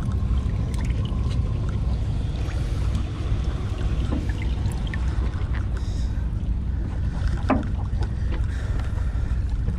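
Steady low hum of a sportfishing boat's engine running, with a few light clicks and knocks of tackle being handled, the clearest about seven and a half seconds in.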